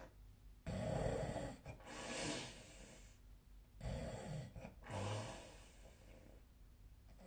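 A sleeping person snoring in two breath cycles. Each is a loud snore that starts suddenly, then a softer breath; the first comes about half a second in and the second near four seconds in.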